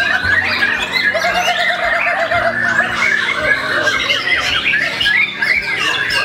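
Many caged songbirds, white-rumped shamas among them, singing at once: a dense, unbroken tangle of fast chirps, whistles and trills, with a lower warbling trill about half a second in.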